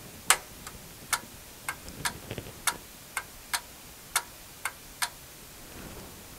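Rotary selector switch on a test instrument clicking through its detent positions: about a dozen sharp clicks at uneven spacing, roughly two a second, stopping about five seconds in.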